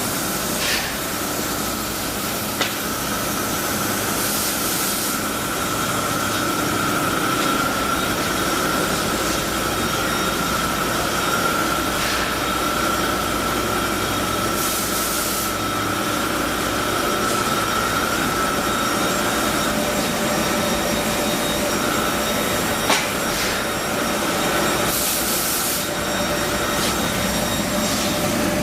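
Trumpf L-3030 4000-watt CO2 laser cutting machine running: a steady mechanical hum with a high whine through most of it, stopping about 20 seconds in. A short hiss comes about every ten seconds.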